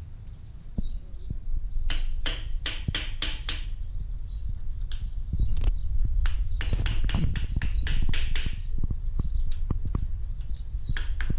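Quick runs of sharp metallic clicks and taps from hand tools working on the timing cover of a Toyota 18RG twin-cam engine, over a steady low rumble.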